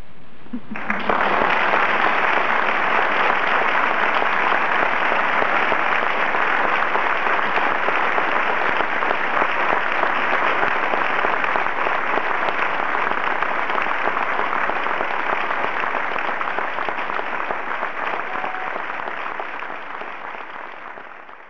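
Audience applauding, breaking out about a second in as the last chord of a concert band dies away, holding steady, then fading out near the end.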